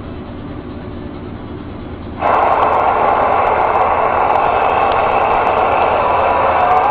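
CB radio receiver static from a Cobra 29 LX LE's speaker: a low hiss, then about two seconds in the static jumps suddenly much louder and runs on steadily.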